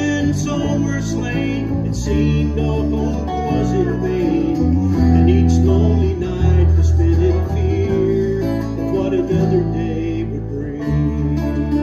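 Bluegrass gospel string band playing: banjo, acoustic guitars, resonator guitar and bass guitar, with a steady strummed rhythm and walking bass notes.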